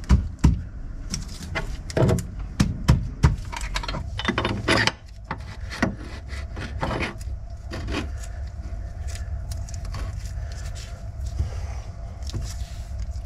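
Metal clinks and knocks of suspension parts and hand tools being handled while a car's front lower suspension arm and joint are refitted. There is a quick run of sharp knocks in the first few seconds, then only scattered clicks over a low steady rumble.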